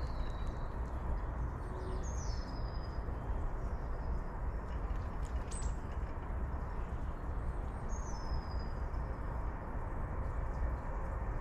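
A few wild bird calls over a steady low background rumble: two similar high calls that drop in pitch, about six seconds apart, with a short sharp chirp between them.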